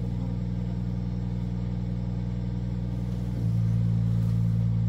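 Tracked crane's engine running steadily, then revving up and getting louder about three and a half seconds in as the boom takes the weight of the old wooden utility pole.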